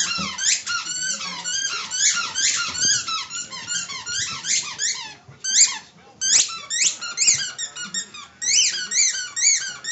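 Rapid, high-pitched squeaking, several squeaks a second, each quickly rising and falling in pitch, with a brief break a little past halfway.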